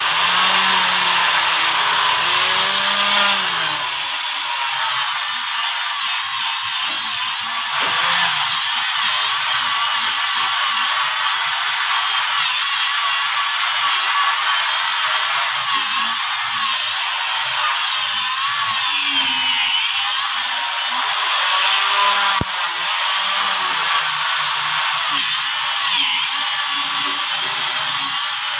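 Electric power tool running continuously, its high whine wavering up and down in pitch, with a sharp click about 22 seconds in.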